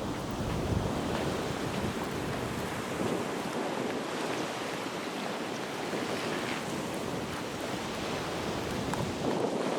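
Surf washing on a sandy beach, a steady hiss of waves, with wind buffeting the microphone as a low rumble that eases after about three seconds.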